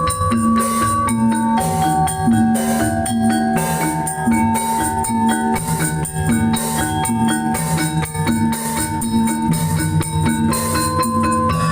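Loud live music led by struck mallet percussion in many short ringing notes, over a repeating low drum pattern, played during a group's sound check.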